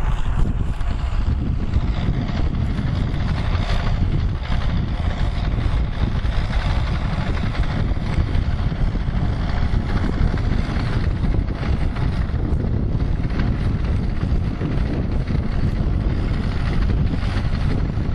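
New Holland T4060 crawler tractor's diesel engine running steadily under load while it pulls a spring-tine vibro cultivator through the soil, with wind noise on the microphone.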